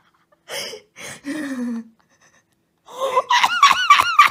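A woman gasps and makes a low falling vocal sound. About three seconds in she breaks into rapid, high-pitched giggling.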